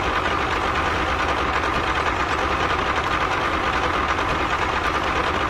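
Small motor of a homemade mini toy tractor running with a steady buzz.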